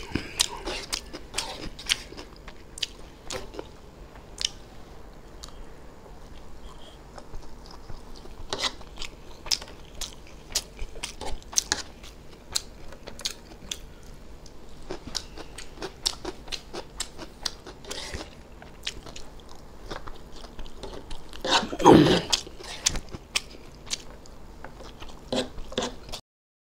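Close-up eating sounds of chewing spicy egg chow mein and boiled egg: wet chewing with frequent short, sharp clicks and crunches. One louder burst about four seconds before the end.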